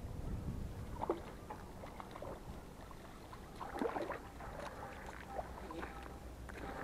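Faint water splashing as a hooked vimba is drawn through the shallows to the bank, then scattered footsteps on a gravel shore, over a low rumble of wind on the microphone.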